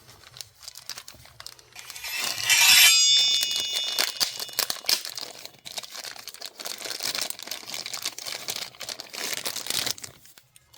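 Knife packaging being opened by hand: a loud tearing rip about two seconds in, followed by several seconds of irregular crinkling and rustling of the wrapping.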